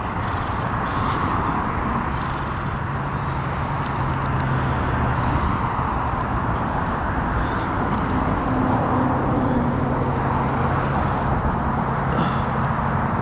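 Steady road traffic noise: cars running past on a nearby road, a continuous tyre rush with a low engine hum that swells and fades as vehicles pass.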